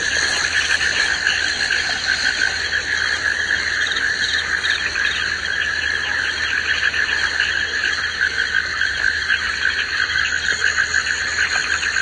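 Rainforest ambience: a dense, steady chorus of calling insects and frogs, with fast pulsing trills over several layers of continuous high-pitched buzzing.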